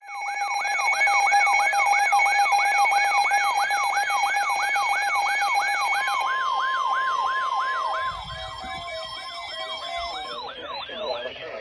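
Emergency alert siren tone: a loud, rapidly repeating falling wail, about three sweeps a second, over steady high tones. About six seconds in a steady single tone joins, and the sweeps fade out near the end. It is the alert that introduces a severe thunderstorm warning.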